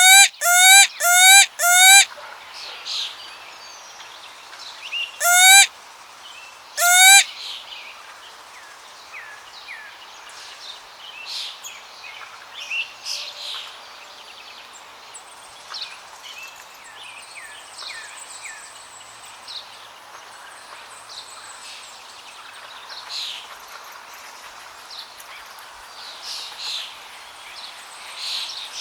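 Peacock (Indian peafowl) calling: four loud, short rising calls in quick succession, then two more a few seconds later. Smaller birds chirp softly for the rest of the time.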